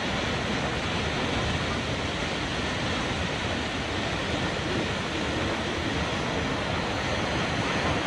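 Kegon Falls, a tall waterfall, pouring into its plunge pool: a steady, unbroken rush of falling water.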